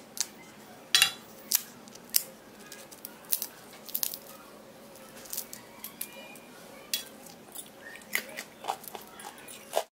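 Fried potato papad (appalam) snapping and crackling as it is broken into pieces by hand: a scatter of sharp, crisp cracks, the loudest about a second and a second and a half in. The crackle shows the papad is fried crisp.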